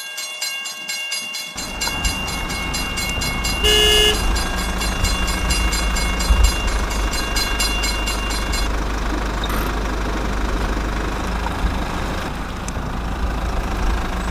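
Toy train running with a low motor rumble, giving one short horn toot about four seconds in; a fast, even ticking runs alongside until about nine seconds in.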